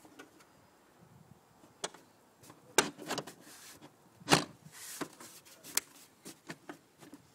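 Plastic engine cover being pressed down and snapped onto its clips: a few sharp clicks and knocks, the loudest about three and four seconds in.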